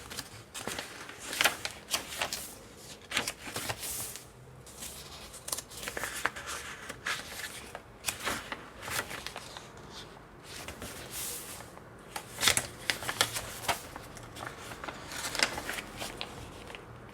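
Paper pages of a handmade junk journal being turned and handled, with irregular rustles and flicks of paper and card.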